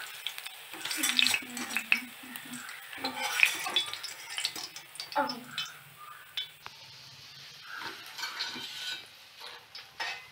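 A wire spider skimmer clinking and scraping against a wok as fried cabbage pakoras are scooped out of hot oil, with the oil sizzling faintly underneath. The knocks are short and irregular.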